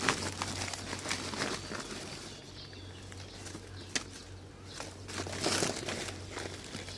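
Irregular rustling and crinkling of material being handled, with one sharp click about four seconds in.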